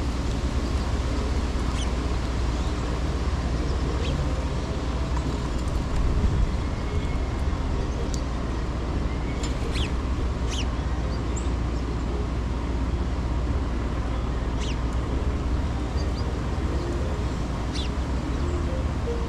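Wind rumbling on the microphone over a steady hum of city traffic, with a few short, sharp bird chips scattered through, several close together around the middle.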